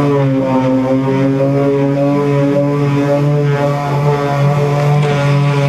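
Cordless Makita random orbit sander running steadily with an even motor hum as it sands back excess epoxy filler on the plywood inside the hull.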